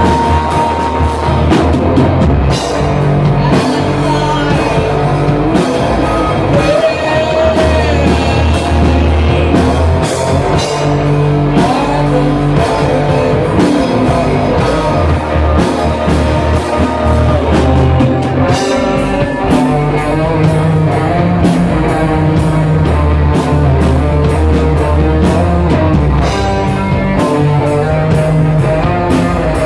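Live rock band playing loud and steady: electric guitars, bass and a drum kit, with a singer's vocals.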